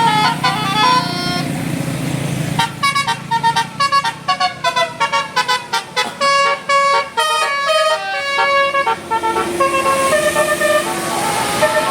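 Indonesian bus 'telolet' horn, a set of air horns playing a quick tune of short, choppy notes, then a few longer held notes near the end. Engine rumble lies underneath in the first couple of seconds.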